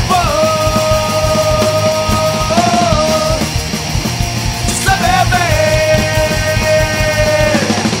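Recorded pop-punk song: a full band with electric guitars and drums, the singer holding a long note that ends about three seconds in, then another long note from about five seconds in until shortly before the end.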